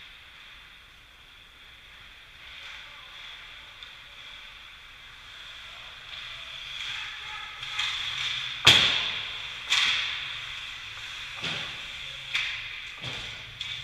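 Ice hockey play heard from behind the rink glass: skates scraping on the ice as the players come toward the goal, and a run of sharp cracks of sticks, puck or bodies against the boards, the loudest about nine seconds in.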